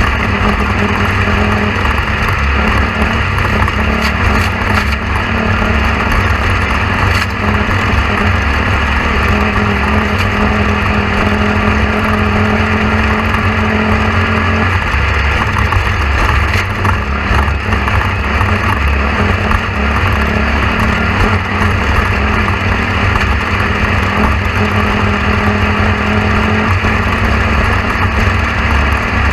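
A motor running steadily, a constant loud drone with a low hum and no breaks.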